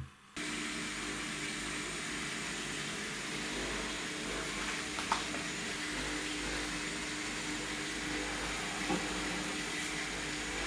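Homemade single-acting oscillating air engine running on compressed air: a steady hiss of air with a steady hum, and a couple of faint clicks.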